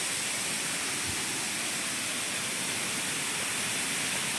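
A waterfall's steady rushing noise, even and unbroken, bright and hissy in the high range.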